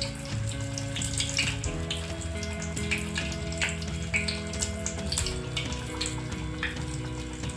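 An athirasam (sweet rice-batter fritter) deep-frying in hot oil in an aluminium kadai, with irregular crackling and sizzling. Background music with sustained chords plays underneath.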